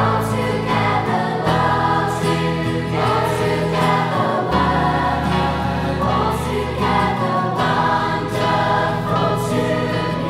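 Choir singing church music over instrumental accompaniment, with a held bass note that shifts every few seconds.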